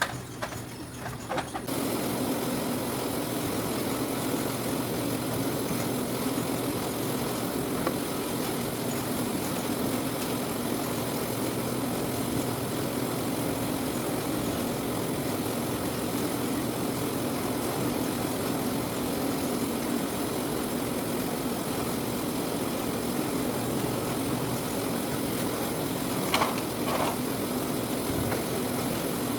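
Citrus sorting machine starting up about two seconds in, then running with a steady mechanical drone. A brief higher sound comes near the end.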